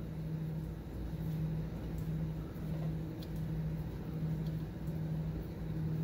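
A steady low mechanical hum that swells and dips in a regular rhythm, with a few faint light clicks.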